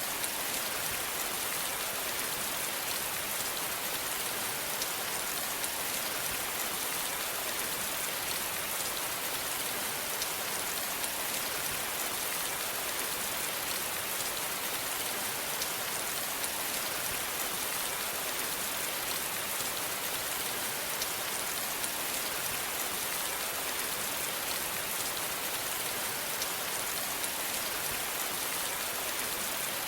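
Steady rain falling, an even hiss with many fine drop ticks and no breaks.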